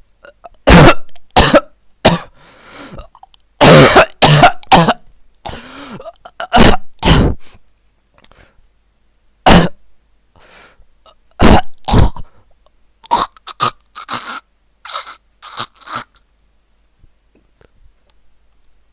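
A person's fake coughing fit: a string of sharp, irregularly spaced coughs and throat-clearing that dies away near the end.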